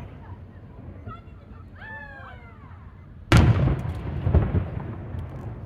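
An aerial firework shell bursting with a single sharp, loud boom about three seconds in, rumbling and echoing away over the next second or so, with a few faint crackles after it.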